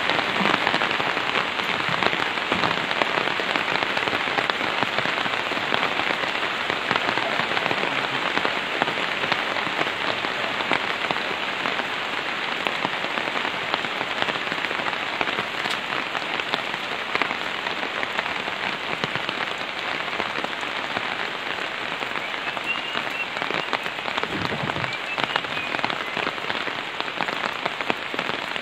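Steady rain: a dense, even hiss of countless falling drops.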